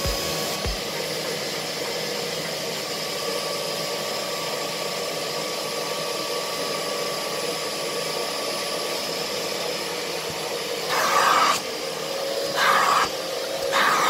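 Würth SEG 10-2 spray extraction vacuum cleaner running steadily with a whining hum while its upholstery nozzle draws over seat fabric. Near the end come three brief, louder rushes.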